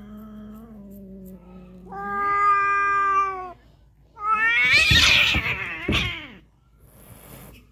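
Cats in a fight standoff: a low, steady growl, then a long, loud yowl about two seconds in, then a harsher screech mixed with hissing about four seconds in. These are the threat sounds of a cat confronting an intruding cat.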